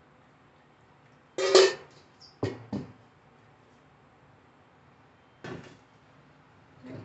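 Stainless steel bowls and a metal strainer knocking together as they are handled: one loud ringing clank about a second and a half in, two lighter knocks a second later, and a softer one later on.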